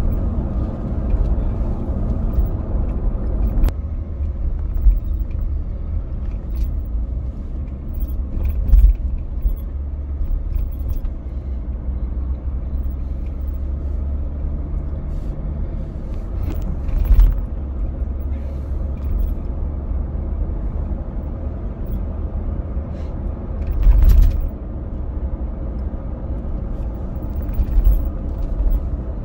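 A car driving along the road, heard from inside the cabin: a steady low engine and road rumble, with a few short thumps from the road surface.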